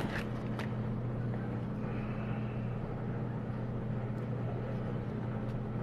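A steady low hum, with two light clicks in the first second and faint rustling as stacks of game cards and their plastic wrap are handled.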